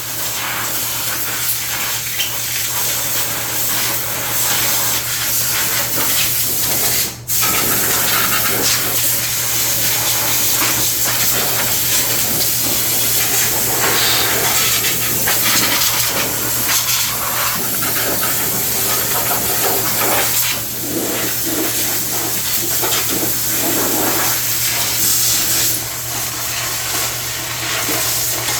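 A loud, steady hissing jet with a constant low hum underneath, cut off briefly about seven seconds in, from a high-pressure cleaning jet worked over the mower deck.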